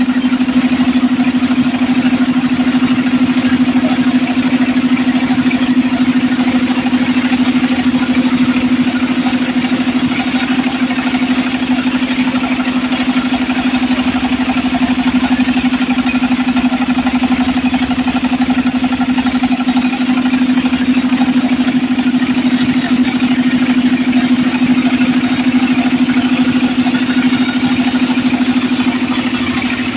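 Homemade engine-driven circular saw machine running steadily, with a constant deep hum.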